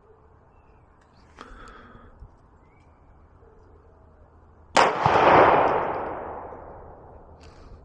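A single gunshot about five seconds in, followed by a long rolling echo that dies away over a couple of seconds.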